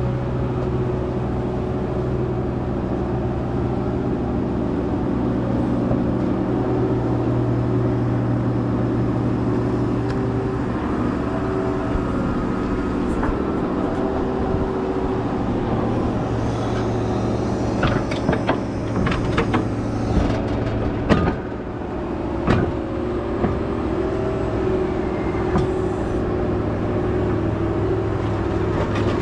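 Large farm tractor engine running steadily, with a cluster of sharp clicks and knocks about two-thirds of the way through.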